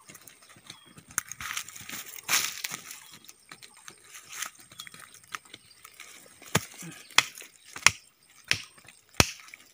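A knife digging and scraping in dry soil, with crumbly scratching at first and then a run of about five sharp chops into the ground, roughly one every two-thirds of a second, near the end.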